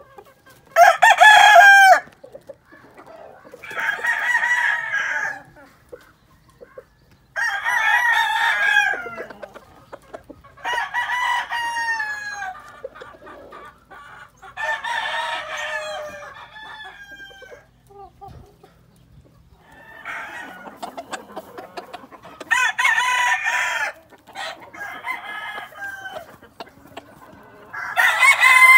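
Gamefowl roosters crowing one after another, about nine crows in all, the loudest about a second in.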